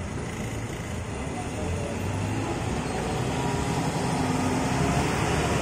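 Volvo B8R coach's rear-mounted diesel engine running as the bus drives past, growing louder as the engine end comes alongside.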